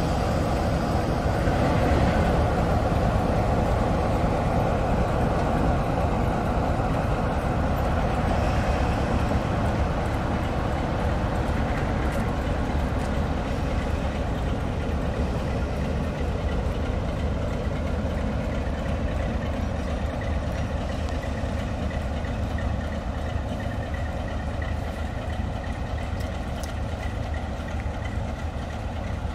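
British Rail 'Peak' diesel-electric locomotive running its engine as it moves away along the track, slowly growing quieter.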